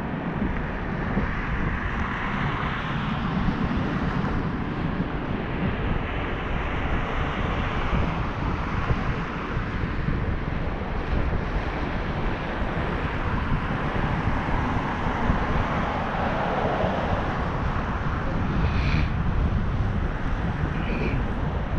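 Steady wind rushing and buffeting against the microphone of a camera riding along on a moving bicycle.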